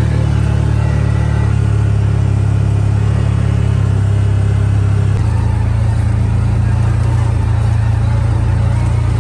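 Off-road vehicle engine running at a steady speed, its low drone shifting abruptly to a different pitch about five seconds in.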